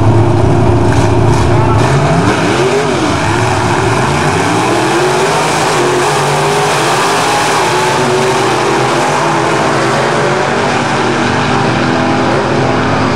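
Two vintage gasser drag cars, a tri-five Chevrolet and a Chevy II Nova, holding at the line with engines running steadily, then launching about two seconds in. Their loud engines rise in pitch, drop at each gear shift and climb again as the cars pull away down the strip.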